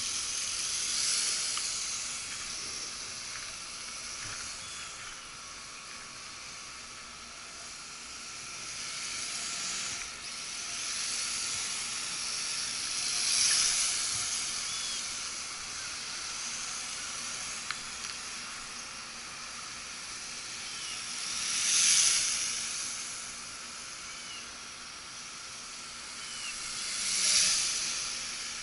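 Small toy quadcopter's motors and propellers running in flight: a steady high-pitched hiss and whine that swells louder as it passes close, once about halfway and twice near the end.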